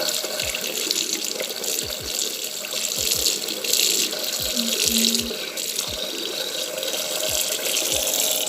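Tap water running steadily into a sink, then cut off abruptly.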